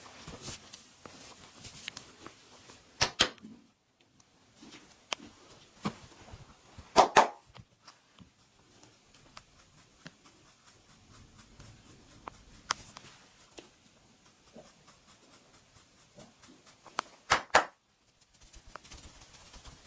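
Hands-on massage: faint rubbing and small taps throughout, broken by sharp snaps. There are two about three seconds in, a short burst around seven seconds, and several close together near the end.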